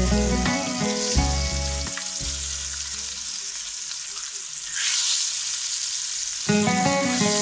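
Floured pork cutlets frying in hot lard in a stainless steel pan: a steady sizzle that flares up louder about five seconds in as the cutlets are turned over. Background music plays over the first two seconds and returns near the end.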